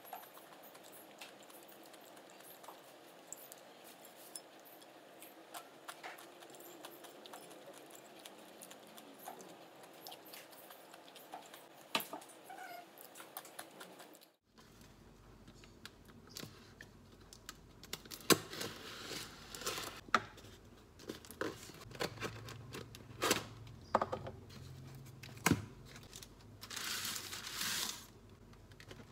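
Quiet room with a few light clicks of a metal fork on a ceramic plate. Then paper wrappers rustling and crinkling as they are handled and pulled apart, with sharp knocks on a table and a longer rustle near the end.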